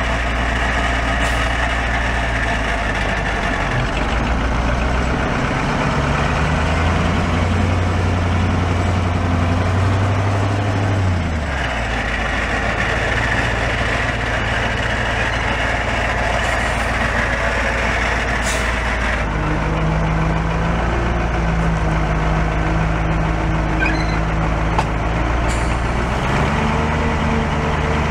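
A Caterpillar 3208 V8 diesel in a 1976 Ford 8000 dump truck running, its speed stepping up and back down a few times. In the second half the raised engine speed drives the PTO hoist as the dump bed lifts.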